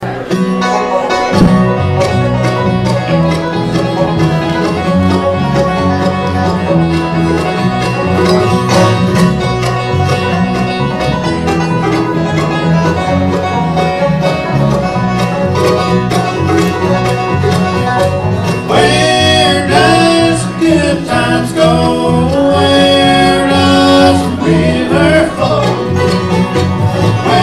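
Bluegrass string band playing, with banjo and guitar carrying an instrumental opening. A wavering lead melody line comes in on top about two-thirds of the way through.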